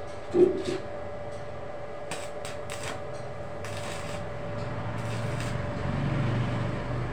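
Arc welder laying short tack welds on a steel square-bar frame: brief crackling hisses of the arc a few times, about half a second each. A sharp metal clank about half a second in, and a low rumble swells in the second half.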